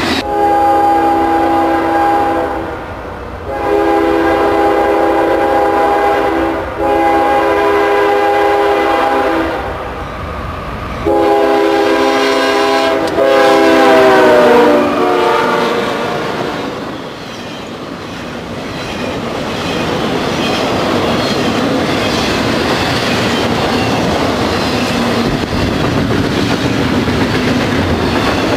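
A diesel freight locomotive's multi-note air horn sounds five blasts of two to three seconds each. On the last blast the chord drops in pitch as the locomotive passes. After it, the rolling rumble and clickety-clack of railcars going by.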